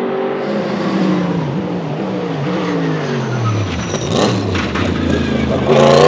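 Sauber Mercedes C11's 5.0-litre twin-turbo Mercedes M119 V8 race engine dropping in pitch in several quick steps, like braking and downshifting into a corner. It gives a run of sharp pops about four seconds in, then grows louder as the car comes past near the end.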